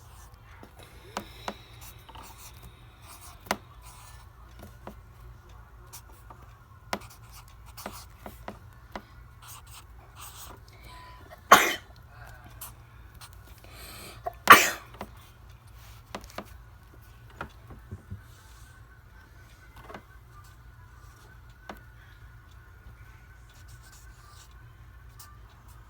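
A person sneezes twice, two loud short bursts about three seconds apart, with faint scattered clicks around them.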